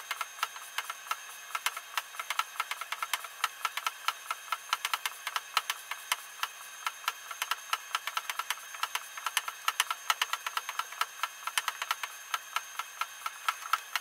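Rapid, even clicking, roughly five to seven clicks a second with a faint ringing tone, from the altimeter bench test rig while static pressure is drawn down and the MK.30C servo altimeter's reading climbs.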